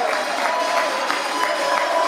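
Football crowd applauding and cheering the cup winners, with music playing over the stadium PA.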